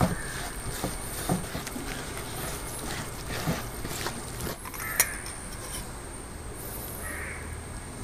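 A hand kneading thick, wet masala paste in an aluminium pot, with a few sharp clicks against the pot, the loudest about five seconds in.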